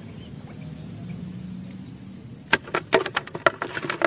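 A faint steady low hum, then from about two and a half seconds in a quick, irregular run of sharp clicks and knocks.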